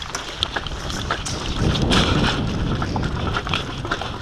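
Wind buffeting the microphone of a body-worn camera as the player moves, a low rumble that swells to its loudest about two seconds in, with scattered footsteps and gear clicks.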